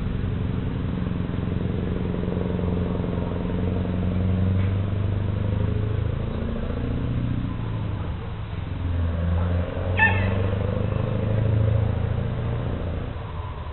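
Scania 164L's 16-litre V8 diesel engine pulling a loaded truck away through the gears, its note rising, dipping and rising again as it goes. A short high chirp sounds about ten seconds in.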